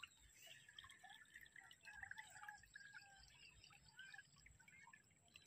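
Near silence: faint outdoor ambience with scattered faint short chirps.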